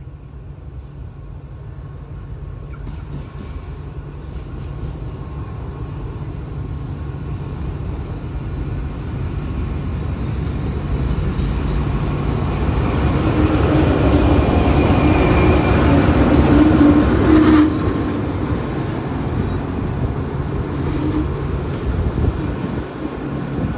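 Diesel-electric locomotive no. 4154 of the State Railway of Thailand approaching along the platform track. Its engine and wheels on the rails grow steadily louder as it nears, and the sound drops suddenly about three-quarters of the way through.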